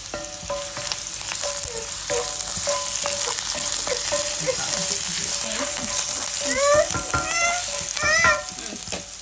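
Chopped garlic and ginger sizzling steadily in hot oil in a cast-iron skillet, stirred and scraped around with a wooden spatula. A few short high chirping sounds come in about seven to eight seconds in.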